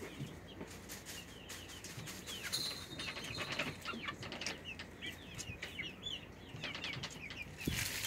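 Eight-week-old chickens peeping softly in many short, high cheeps, with rustling and brief wing flutters.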